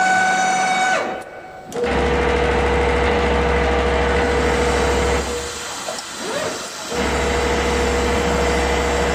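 Richpeace CNC sewing, perforation and embroidery machine starting its run. A motor whine holds and then falls away in the first second. Then a loud, steady mechanical running noise with a low hum sets in, drops off briefly about five seconds in, and starts again about two seconds later.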